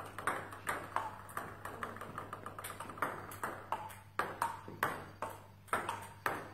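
Table tennis rally: the celluloid-type ball clicking back and forth off the bats and the table, about three hits a second, with a low steady hum underneath.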